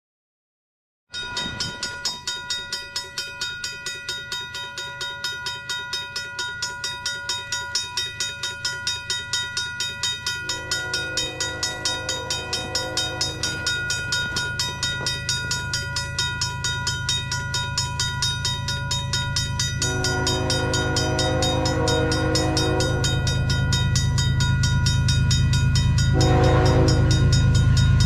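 Level-crossing bell dinging rapidly and steadily, while an approaching locomotive's multi-note air horn sounds the grade-crossing signal: two long blasts, a short one, then another long one starting near the end. Under them the train's low rumble grows steadily louder as it nears.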